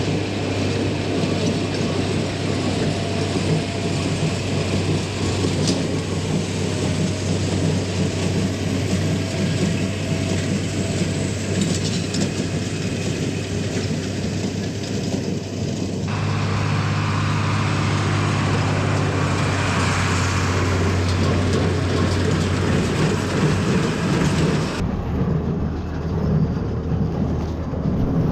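Tractor engine running steadily while pulling a small square baler through the hay, a constant drone with machinery noise over it. The sound changes abruptly about halfway through and again near the end, as the shot cuts.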